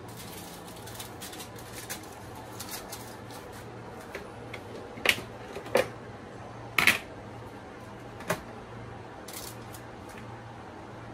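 Foil-covered aluminium trays and plastic steamer tiers being handled and set into place: light rustling of foil, then four sharp plastic clicks and knocks between about five and eight seconds in, the loudest near seven seconds. A low steady hum runs underneath.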